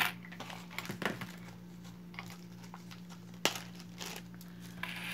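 Beaded jewelry being handled: a few brief clicks and rustles as bracelets are set down and picked up, over a steady low hum.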